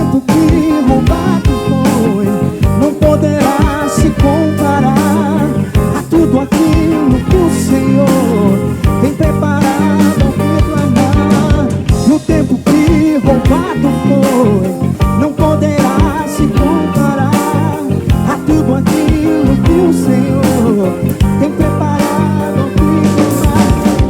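Live band playing an instrumental stretch of a gospel soul song, with drum kit, bass, keyboards and electric guitar carrying a steady beat.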